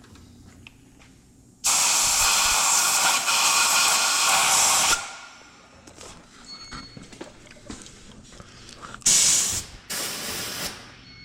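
Compressed air hissing from a blow nozzle into an engine cylinder to blast out jammed paper towel. One long blast of about three seconds comes first, then two short blasts near the end.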